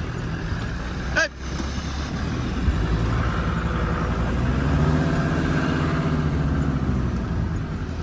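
Vehicle engine heard from inside the cab while driving slowly across a field, running steadily and then speeding up and easing off again in the middle. There is a short break in the sound about a second in.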